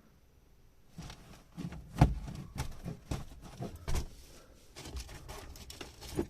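Irregular clicks, knocks and rustling of things being handled inside a car cabin, starting about a second in, with one sharp knock about two seconds in.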